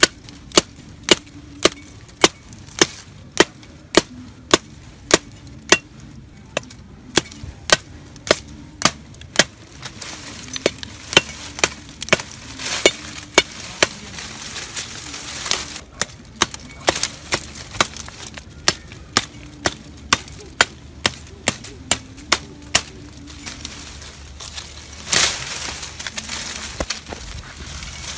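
Machete blade chopping into the woody stem of a small tree: sharp knocks at about two a second in long runs with short pauses. A short burst of noise comes near the end.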